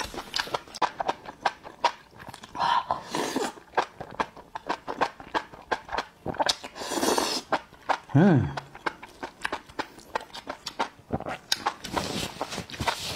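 Close-up slurping and wet, smacking chewing of enoki mushrooms in chili sauce, with several long hissy slurps as the mushroom strands are sucked in. A little past the middle comes a short vocal sound that drops sharply in pitch, the loudest moment.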